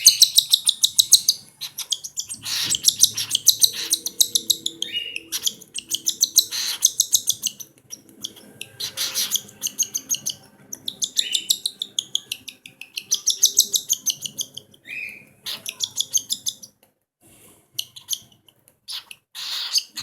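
Hand-fed cockatiel chicks begging for food as they are fed: rapid, rhythmic, buzzy begging calls in bursts of a second or two, with short gaps and a few brief rising chirps between them.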